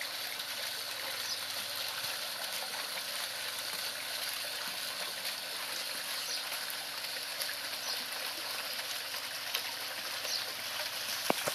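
Small fountain jet in a garden pond splashing steadily back onto the water surface. A single sharp click near the end.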